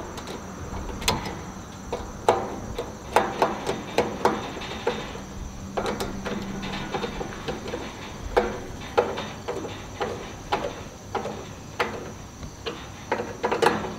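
Screwdriver working the screws of a smoker's metal door latch: irregular small clicks and knocks as the tip catches and turns in the screw heads. Crickets chirr steadily behind.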